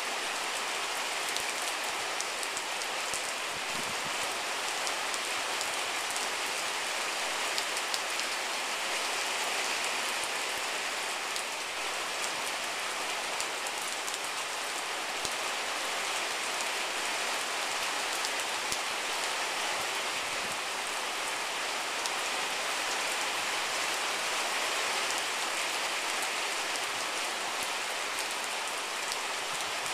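Steady rain falling, an even hiss with the patter of many small drops.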